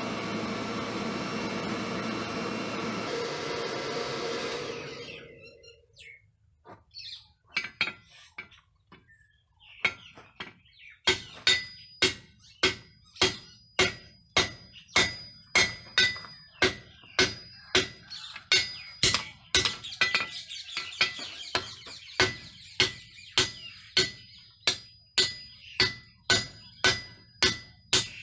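A forge blower runs with a steady rush of air over the charcoal fire, then stops about five seconds in. After a few scattered knocks, a hand hammer starts striking red-hot leaf-spring steel on a railroad-rail anvil, about two blows a second, each blow ringing.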